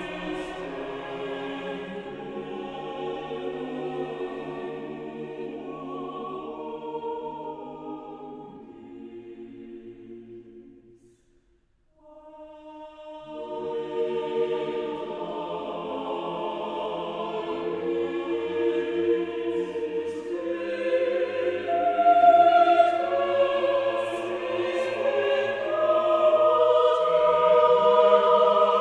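Background music of sustained choral singing; one piece fades out about ten seconds in, there is a moment of silence, then another choral piece begins and swells louder.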